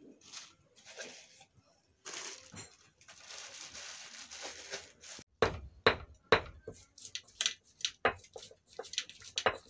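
Kitchen utensils and cookware being handled: a scraping, hissing noise for about three seconds, then a quick run of sharp knocks and clinks to the end.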